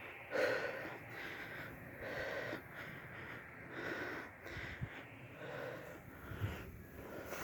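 A person breathing hard, with a rough puff of breath about every second and a half, from the exertion of hiking uphill.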